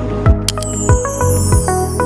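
Background electronic music with a steady kick drum about every two-thirds of a second under short plucked synth notes, and a falling swish about halfway through.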